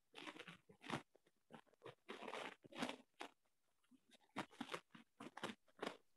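Faint, irregular crackling and rustling bursts coming through a participant's open microphone on an online call: the kind of line disturbance called "khirkhir".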